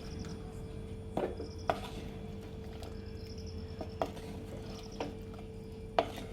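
A spoon stirring curry in a clay pot, knocking against the pot a few times; the sharpest knock is about six seconds in. Under it there is a steady low hum, and short high chirping trills repeat every second or so.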